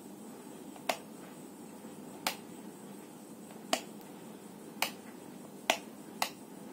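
Six sharp, short clicks at uneven intervals over steady background noise, as the plastic body of an electric multi-cooker pot is handled.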